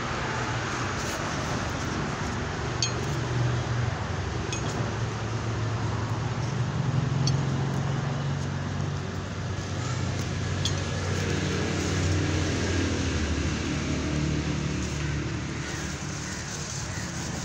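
Hands scratching and loosening dry potting soil in a fabric grow bag, with a steady low hum underneath and a few light ticks.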